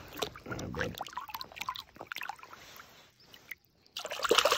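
Lake water splashing and sloshing against the side of a kayak as a smallmouth bass is let go by hand, with a louder burst of splashing near the end as the fish swims off.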